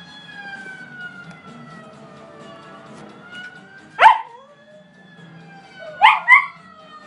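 Pembroke Welsh Corgi howling in short, loud, yelping cries: once about four seconds in, then twice in quick succession about two seconds later. A television film soundtrack with long gliding, siren-like tones plays underneath.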